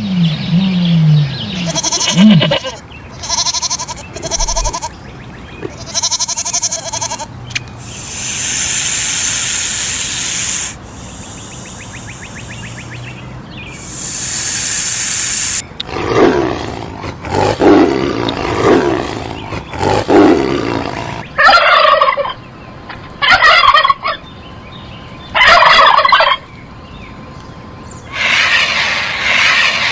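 A run of different animal calls one after another, with turkey gobbling among them, broken by long hiss-like stretches.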